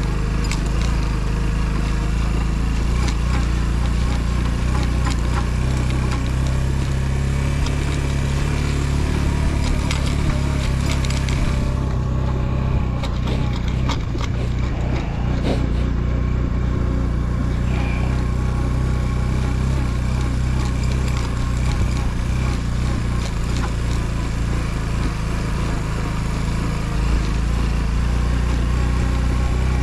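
Motorcycle engine running at a steady pitch while riding, under a constant rushing noise. The hiss above it dulls for a few seconds around the middle.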